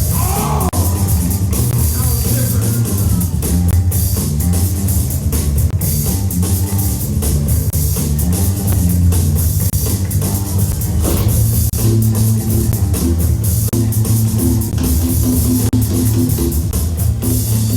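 Loud music with a steady drum beat and a prominent bass line.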